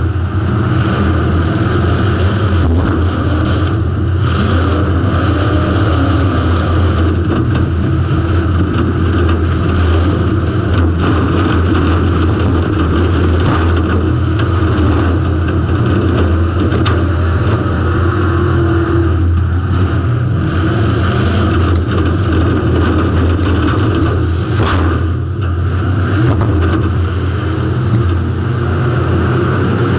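A car's engine running loud and steady, heard from inside the car, with the pitch rising and falling as it is worked on and off the throttle, and a brief drop in level about 25 seconds in.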